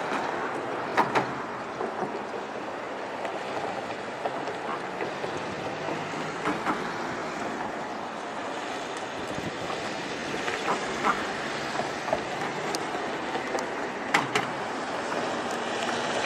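Steady outdoor background noise, an even rushing haze, with a few short sharp clicks scattered through it.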